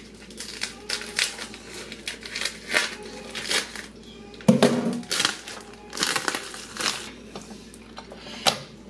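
Clear plastic film crinkling and crackling as it is peeled off a rack of raw ribs, with one louder thump about halfway through.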